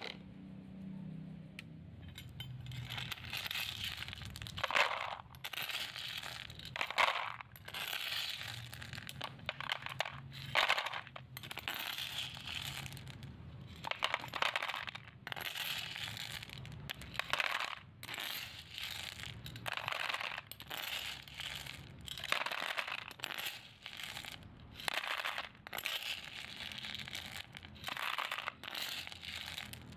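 Small hard toys clattering and clinking as they are handled, a steady run of short clicks and rattles.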